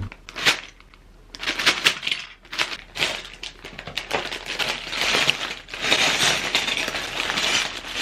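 A plastic bag full of small LEGO bricks being handled and opened: the bag crinkles and rustles while the loose plastic bricks rattle and clatter inside it, in irregular bursts.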